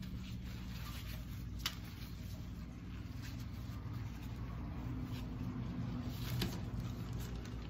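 Paper towel rubbing over metal hand-mixer beaters as gloss base is wiped off them, with a sharp click about two seconds in and a lighter clink near the end as a beater is set down, over a steady low hum.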